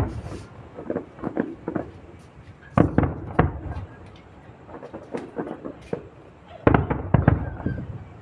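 Aerial fireworks shells bursting in a rapid series of booms and crackles, bunched into three clusters: near the start, around three seconds in, and again near the end.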